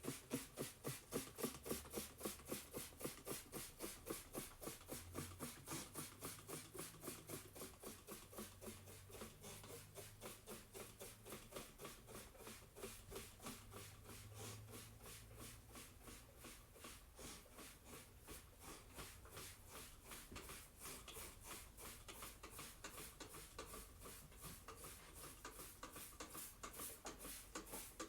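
Faint, even ticking, about three ticks a second, with a weak low hum underneath for the first half.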